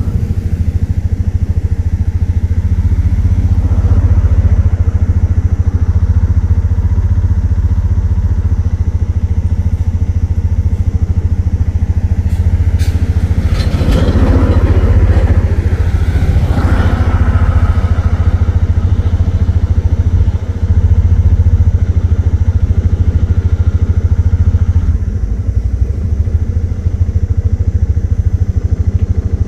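Auto-rickshaw's small engine running steadily, heard from on board, with a swell of louder noise and a few clicks around the middle.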